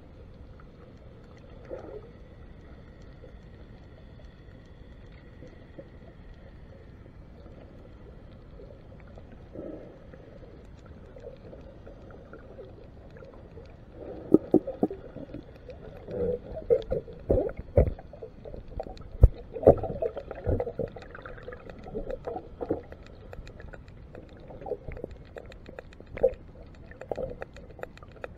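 Underwater sound through a waterproof camera housing: a steady low hiss for the first half, then irregular knocks, thumps and sloshing from about halfway on as the camera on its pole is moved around under the boat.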